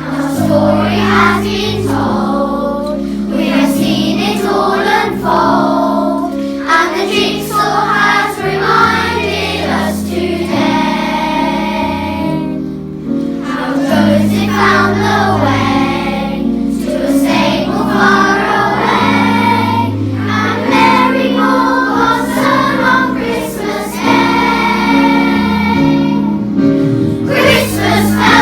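Children's choir singing a Christmas song over steady instrumental accompaniment.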